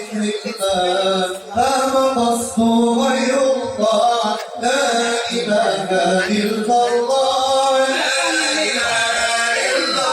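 Male vocal group singing an Islamic devotional praise chant (madih), with long melismatic sung lines.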